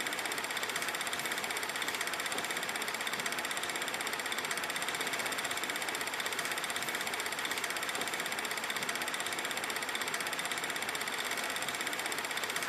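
Old film projector running: a steady, fast, even mechanical clatter with a hiss.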